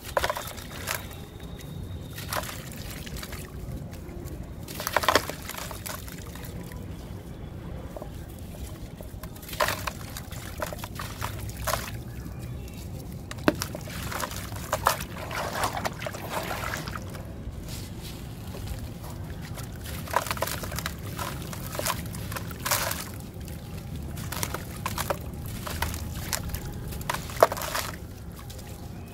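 Dry, gritty, crunchy slabs crumbling and crunching between the hands, with an irregular run of crackles and a few sharper snaps. The crushed grit pours and trickles into a tub of water, splashing and sloshing.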